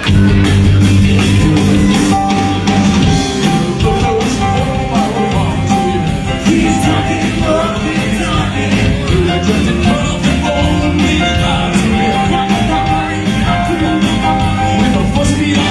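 Rock and roll band music with a steady driving beat, kicking in loudly at once.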